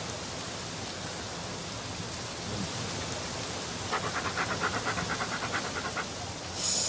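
A dog panting fast, a quick run of short breaths for about two seconds around the middle, over a steady background hiss. A brief hiss near the end.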